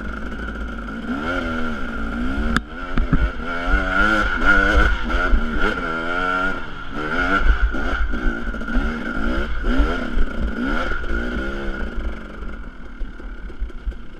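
Dirt bike engine ridden up a steep slickrock climb, its revs swinging up and down about once a second as the throttle is worked, easing off near the end. A single sharp knock sounds about two and a half seconds in.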